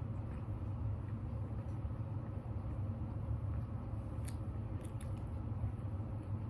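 Steady low background rumble, with a few faint mouth clicks from quiet chewing about four to five seconds in.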